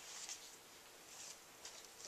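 Near silence: room tone with a few faint small clicks and rustles.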